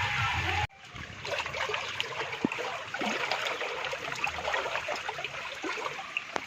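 Monsoon rainwater trickling and splashing, a dense patter of many small drops. Just under a second in, a louder humming sound cuts off abruptly before it.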